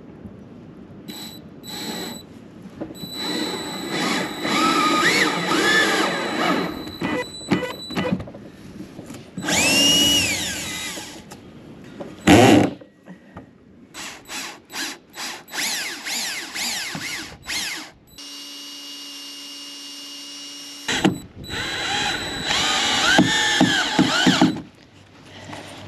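Power drill drilling holes, running in repeated bursts that speed up and slow down, with a run of short trigger pulses partway through.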